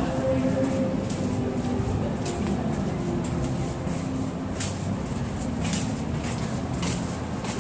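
Steady low rumble of outdoor ambience, with short sharp footstep taps on the concrete path recurring every half second or so in the second half.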